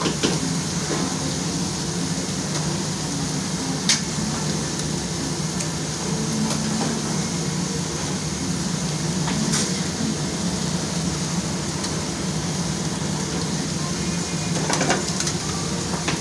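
Steady kitchen noise: food frying with a low hum underneath, and three sharp clicks of utensils spread through.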